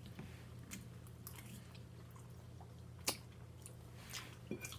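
Close-miked mouth sounds of a woman chewing food: soft wet smacking clicks, with one sharper smack about three seconds in and a few more near the end, over a faint steady low hum.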